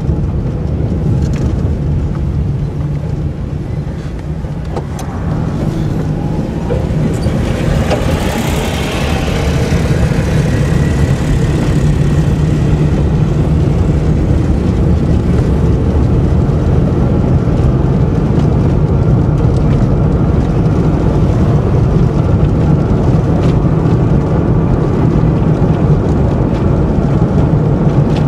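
Steady engine and road rumble heard from inside a moving car, with a brief rushing swell about eight seconds in, after which it runs louder.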